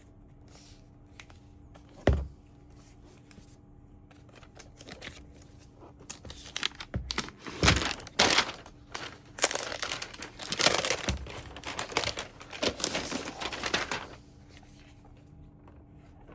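Laptop packaging handled: a single thump about two seconds in, then several seconds of loud crinkling and tearing of the wrapping, stopping near the end.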